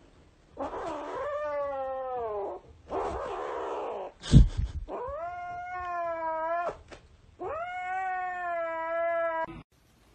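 Grey kitten yowling: three long drawn-out calls, the first falling in pitch and the last two held steady, with rough breathy sounds before the first two. A single sharp thump about four seconds in.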